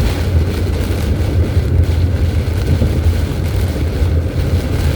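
Steady low rumble of road and wind noise inside a moving vehicle, driving through high winds and heavy rain.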